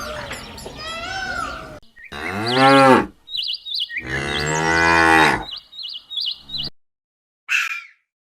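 Two long, low calls from a large mammal, the second longer than the first, like cattle lowing, with short high chirps between and after them. Before them, a series of arching higher-pitched calls from another animal fades out, and near the end there is one short noisy burst.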